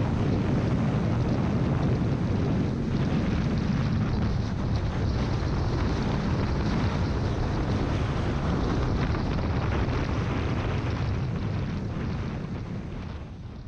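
Wind rush over the microphone mixed with the parallel-twin engine of a 2019 Honda CBR500R cruising at highway speed in sixth gear. It fades out near the end.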